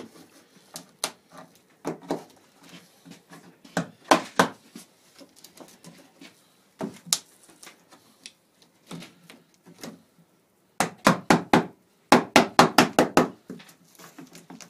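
Mallet tapping a tool against the gunwale edge of a canvas-covered wooden canoe. Scattered single knocks at first, then two quick runs of rapid taps, the loudest, about three-quarters of the way in.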